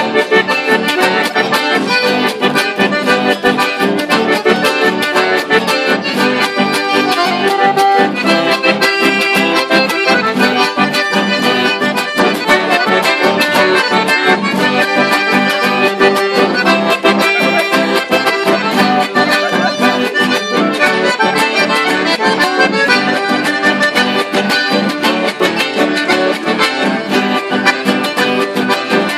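Two accordions playing a tune together, with acoustic guitar accompaniment, in a steady rhythm.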